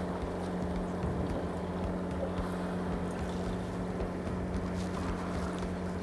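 Fishing boat's engine running steadily, a constant hum.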